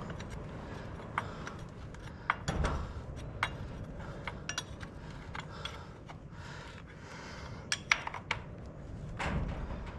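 Hand tools and metal parts clinking and knocking in irregular, scattered taps, with duller thumps about two and a half seconds in and again near the end.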